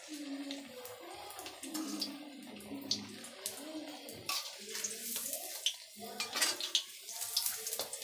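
A large bottle-gourd and gram-flour kofta deep-frying in hot oil in a kadhai: steady sizzling and bubbling, with sharp crackles and a few clinks of a metal slotted spoon against the pan.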